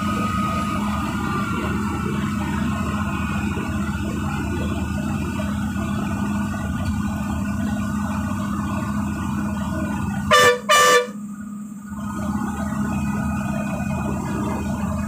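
Bus engine running steadily in the cabin, with two short, loud blasts of the bus horn about ten seconds in.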